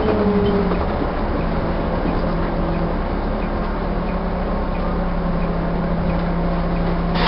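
Alexander-bodied Volvo bus engine winding down in pitch and settling into a steady idle, heard from on board. A sudden noise comes right at the end.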